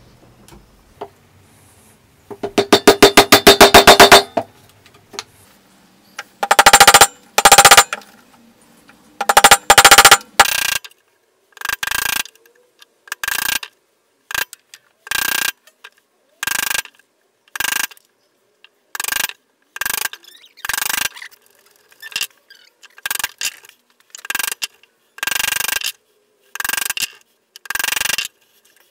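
Hammer striking a chisel chopping a mortise in oak, heard sped up: a dense run of very rapid blows about two seconds in, then short clusters of strikes coming about once a second.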